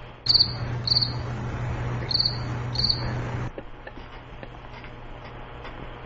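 Recorded cricket chirps played as the classic dead-air gag: four short high chirps in two pairs over a hiss, which starts suddenly and cuts off after about three seconds.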